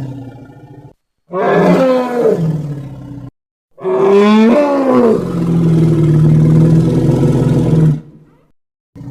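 African bush elephant calls, edited one after another with sudden cuts to silence between them: the tail of one call, then a call about two seconds long that drops in pitch, then a longer call that falls and then holds a steady low note for about three seconds. Another call starts near the end.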